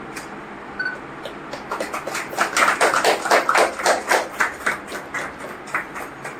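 A small group of people clapping by hand. The clapping starts about a second and a half in, is thickest in the middle, and dies away near the end.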